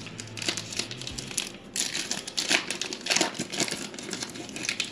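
Foil wrapper of a 2020 Panini Prizm football card pack being torn open and crinkled by hand: a run of irregular crackles, busiest from about two seconds in.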